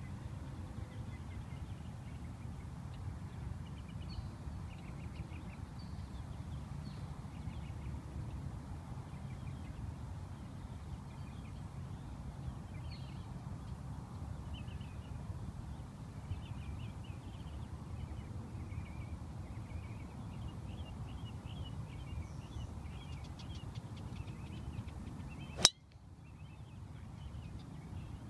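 Birds chirping over a steady low rumble, then, near the end, one sharp crack as a Titleist 913D2 titanium driver strikes a golf ball off the tee.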